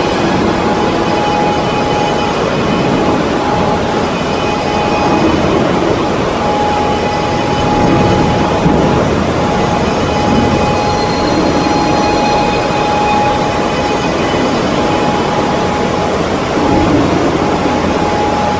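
Steady running noise of a factory production line's powered roller conveyors carrying large boards. A thin steady whine cuts out and comes back several times over it.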